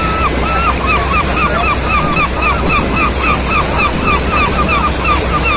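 A seagull calling a fast run of short, repeated notes, about four a second, over the steady rush of waves and wind on the microphone, with a low steady drone beneath.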